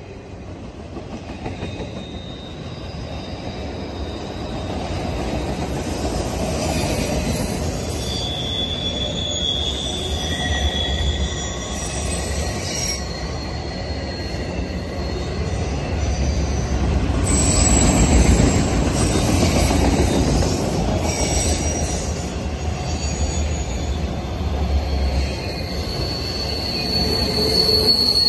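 A freight train of autorack cars rolling past on the rails: a continuous heavy rumble of wheels on track, with thin, high wheel squeals that come and go above it.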